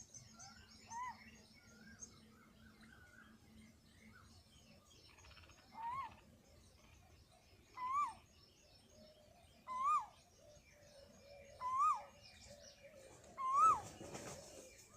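A peafowl calling: a series of short, loud calls, each rising and then falling in pitch, repeated about every two seconds and growing louder toward the end. Small birds chirp faintly in the background.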